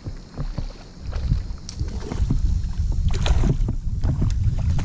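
A fish splashing and thrashing at the surface right beside a kayak, loudest a little after three seconds in. Under it, wind rumbles on the microphone, with a few light knocks.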